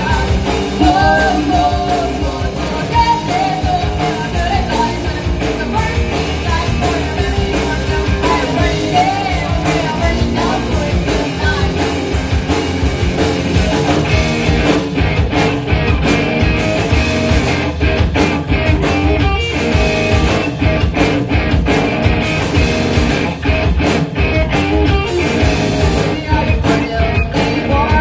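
A rock band playing live: electric guitars and drum kit, with a lead vocal singing over them in the first half. About halfway through, the drumming becomes denser and more cymbal-heavy.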